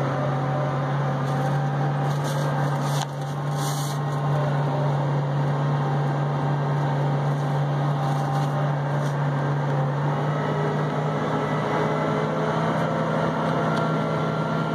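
Tractor engine running steadily under load while pulling a planter, heard from inside the cab; a steady low drone whose pitch steps up slightly about ten seconds in.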